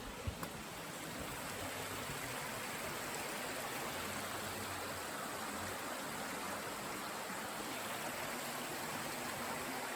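Stream water running below, a steady rushing hiss that grows a little louder over the first couple of seconds and then holds.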